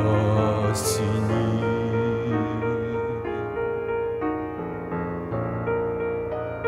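Piano playing the slow closing bars of a hymn accompaniment, separate notes ringing out one after another. A man's held sung note with vibrato ends about a second in.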